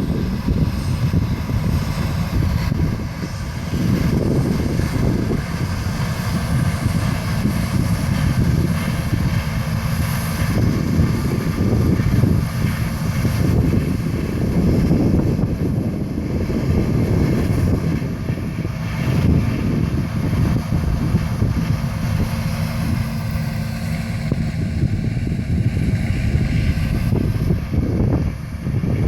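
Combine harvester running steadily under load, a dense low engine-and-machinery drone with faint steady whine higher up.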